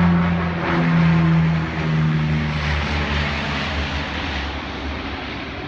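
Canadair CL-215 water bomber flying low overhead, its twin radial piston engines giving a steady propeller hum. The pitch steps down less than two seconds in, and the sound slowly fades as the plane moves away.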